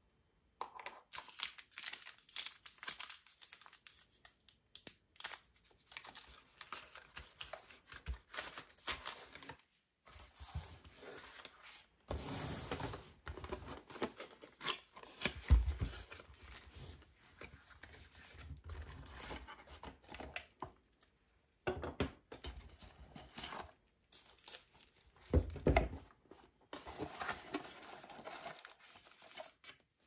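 Packaging being handled and opened: irregular crinkling, rustling and tearing of wrapping, with two dull thumps, about fifteen and twenty-five seconds in.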